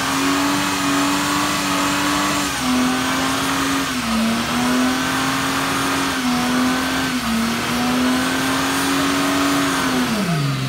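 Car engine held at high revs through a burnout, the driven tyres spinning and smoking against the pad, with a few brief dips in revs. The revs drop away near the end.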